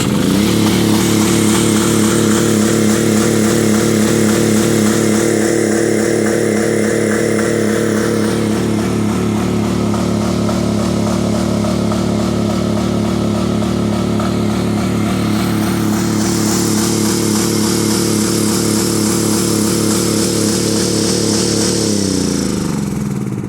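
Champion dual-fuel portable generator engine running steadily at a constant speed. About 22 seconds in, it slows and winds down to a stop, a fault the owner suspects is a bad governor.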